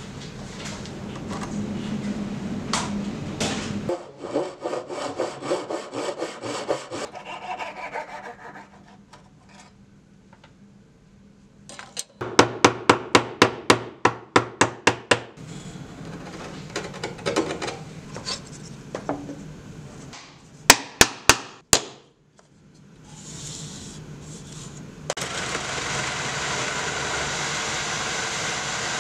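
A run of woodworking sounds: quick rasping strokes on wood, then a mallet striking a chisel about ten times in quick succession as dovetail waste is chopped out, four more sharp strikes, and near the end a drill press starting up and running steadily as a Forstner bit bores into the wood.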